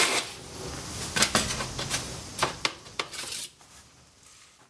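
Wooden slatted folding table knocking and clacking as it is handled: a loud knock right at the start, then a string of lighter wooden clacks over the next few seconds, dying away near the end.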